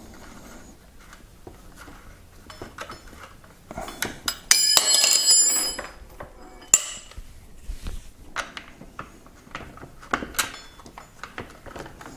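Hex key turning out a mounting bolt of a Yamaha PW-X e-bike mid-drive motor: light metallic clicks and clinks of tool and bolt, with a louder ringing metallic clatter lasting about a second about four and a half seconds in.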